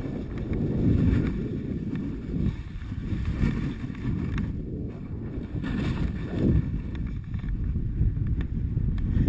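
Wind rushing and buffeting over a body-mounted action-camera microphone during a fast downhill run on snow, an uneven low rumble with brief hissing swells of snow scraping under the rider as they turn.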